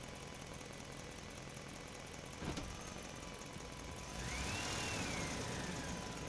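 Truck engine running at low speed as it moves around a parking area, with a sharp knock about two and a half seconds in. From about four seconds in it grows louder and a high squeal rises and then slowly falls.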